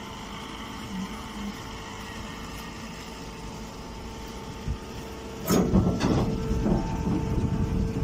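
Stationary straw baling machine running with a steady electric hum. About five and a half seconds in, a much louder, irregular clattering and rattling starts and keeps going.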